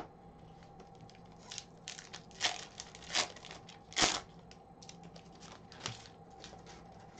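A hockey card pack's wrapper being torn open and crinkled by gloved hands, in a handful of short rips, the loudest about four seconds in.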